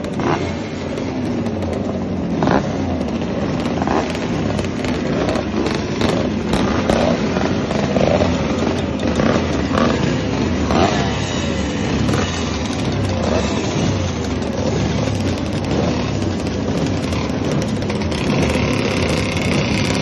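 Several classic two-stroke racing motorcycle engines running together and being blipped repeatedly, the pitch rising and falling with each rev, with sharp crackles and pops from the exhausts.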